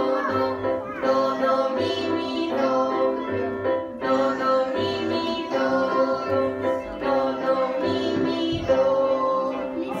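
Electronic keyboards playing a simple children's tune together, the teacher's keyboard leading with steady chords over a low note repeating on a regular beat.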